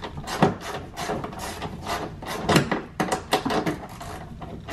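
Irregular clicks, knocks and rubbing of hands and a hand tool working on the bolts of a new window regulator inside a car door's metal inner panel. The loudest knocks come just after the start and again about halfway through.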